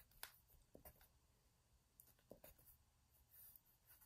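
Faint, short scratches of a coloured pencil on paper, a handful of quick separate strokes as small sprinkle dashes are drawn one after another.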